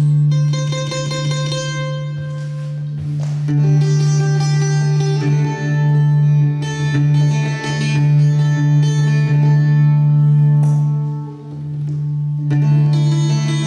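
Live acoustic instrumental music: a long-necked folk string instrument sounding a melody over a steady low drone, with light hand-drum taps. The drone drops out briefly a little after eleven seconds in, then returns.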